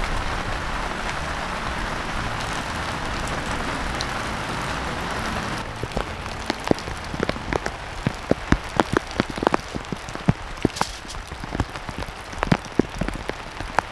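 Heavy rain falling in a steady, dense hiss. About halfway through it changes suddenly to separate heavy drops dripping and tapping irregularly onto a surface, a few a second.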